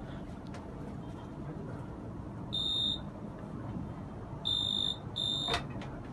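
Three short, high-pitched electronic beeps: one about two and a half seconds in, then two close together near the end. Steady background noise runs underneath.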